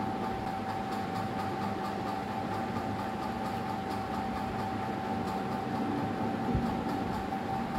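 A steady mechanical hum with a constant high whine, and one soft low knock about six and a half seconds in.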